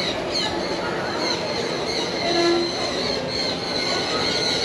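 Dense chatter of many small birds, a continuous din of high squeaky chirps.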